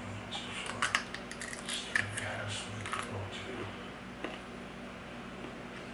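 Raw Brazil nuts being chewed with the mouth close to the microphone: a run of small crunching clicks and crackles for the first three or four seconds, then quieter chewing.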